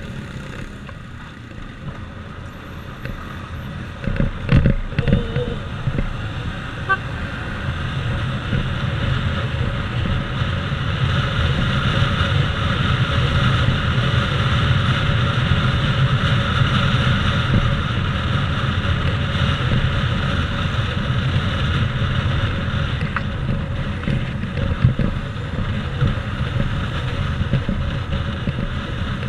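A motorcycle under way, its engine and wind rushing over the bike-mounted microphone, with a few knocks about four to five seconds in. It grows louder from about eight seconds in.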